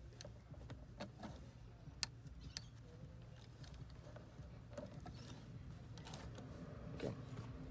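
A curtain being fed by hand into an aluminium top rail: soft fabric rustling and light clicks as its runners slide into the track, with a sharper click about two seconds in and another near the end, over a low steady hum.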